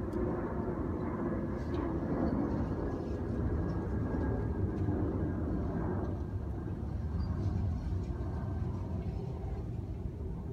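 Distant engine rumble, steady and low, easing off somewhat in the second half.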